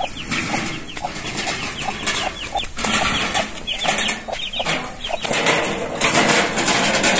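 Birds calling in clusters of short, quick falling chirps, with a rushing noise in the last second or so.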